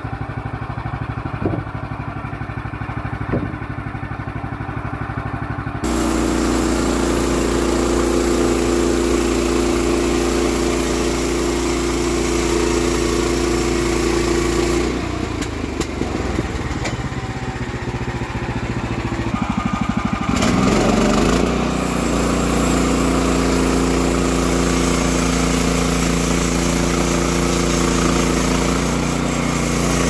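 Woodland Mills portable bandsaw mill's gas engine idling, with a few knocks in the first few seconds, then throttled up sharply about six seconds in to run the blade. It eases back around fifteen seconds in and throttles up again around twenty seconds.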